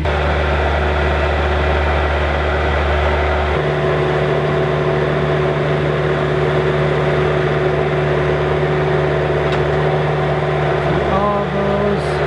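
An engine or motor running steadily, its note changing once about three and a half seconds in. A brief voice is heard near the end.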